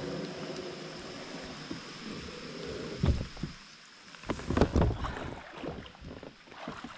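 Kayak paddle strokes in lake water: a few irregular splashes and drips, the loudest around the middle, over a steady wash of water and light wind noise on the microphone.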